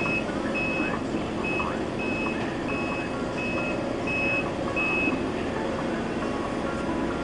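Reversing alarm on a small dump truck beeping at a steady pace, about eight beeps, stopping about five seconds in. Underneath, diesel construction machinery runs steadily.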